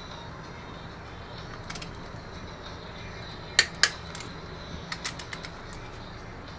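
Torque wrench and ratchet clicking on a 4G63 engine's cylinder head bolts during the 70 ft-lb tightening pass: scattered light ratcheting clicks, two sharp clicks about a quarter second apart about halfway through, then a quick run of lighter clicks.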